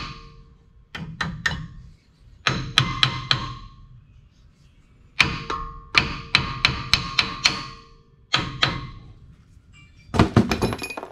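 Hammer striking the steel caliper and retaining hardware of a dump truck's front disc brake: short bursts of three to eight quick blows, each with a metallic ring, and a fast flurry of blows near the end.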